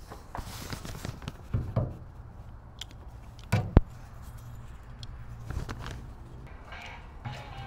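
Scattered knocks and clicks of a metal tailgate handle being handled against the inside of a van's tailgate, the loudest a double knock about halfway through, over a low steady hum.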